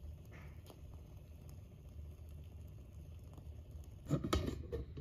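Quiet room tone: a steady low hum with faint scattered clicks, and a brief cluster of small knocks about four seconds in.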